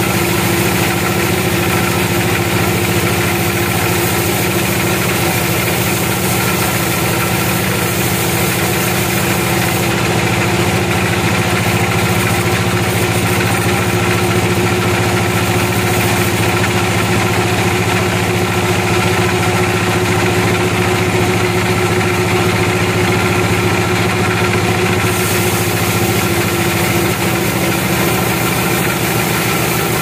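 Band sawmill running steadily as its band blade cuts lengthwise through a log: a constant machine drone with steady hum tones that holds level throughout.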